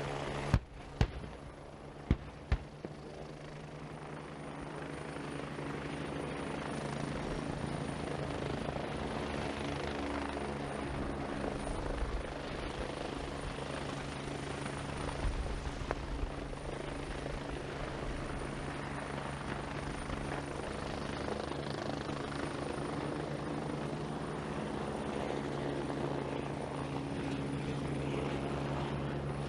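A military helicopter's rotor and turbine engine running steadily, growing louder over the first few seconds as it comes closer, then holding a constant level. Four sharp bangs come in the first three seconds.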